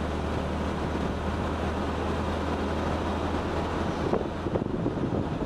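Jeep Wrangler driving with its doors off: steady engine drone under road and tyre noise, with wind buffeting the microphone. The low drone fades about four seconds in.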